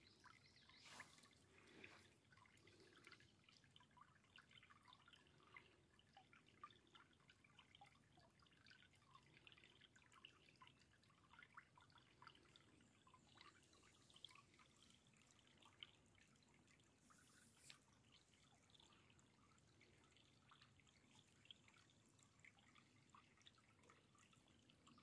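Very faint trickling of a shallow woodland rivulet running over moss and leaf litter, with scattered small drip-like ticks at irregular intervals.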